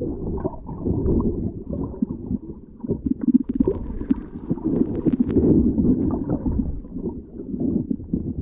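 Muffled underwater water noise heard through a submerged camera's microphone: irregular low churning and gurgling from a snorkeler moving through the water, with scattered faint clicks.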